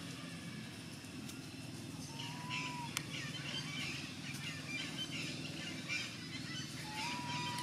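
Small birds chirping busily from about two seconds in, over a steady low rumble. Two short, thin, slightly rising whistles come about two and a half seconds in and again near the end, with a single sharp click at about three seconds.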